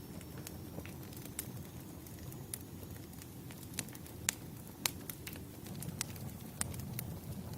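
Wood fire crackling: irregular sharp pops and snaps over a low steady rumble, with the loudest snaps a little past halfway.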